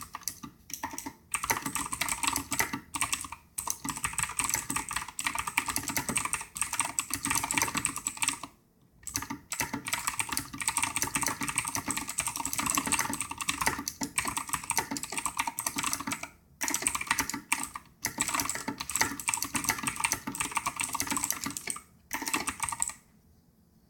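Fast, continuous typing on a Razer BlackWidow mechanical keyboard at about 90 words per minute: a dense run of key clacks with a few brief pauses. It stops about a second before the end.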